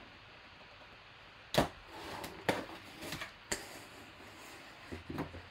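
Scissors cutting security tape on a cardboard box: four sharp snips over about two seconds, starting about a second and a half in, with tape and cardboard rustling between them and a few soft knocks of the cardboard near the end.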